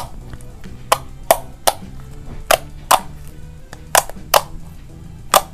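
Pink glue slime being pressed and folded by hand, with air pockets popping in sharp clicks, about nine of them, often in pairs half a second apart. Faint background music plays underneath.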